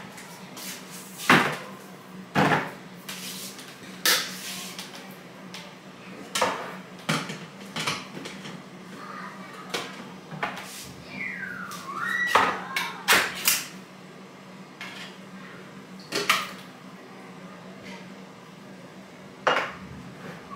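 Kitchen handling clatter: a blender jar being fitted to its base and tins of tomatoes knocked and set down on a worktop. It comes as scattered separate knocks and clinks over a steady low hum.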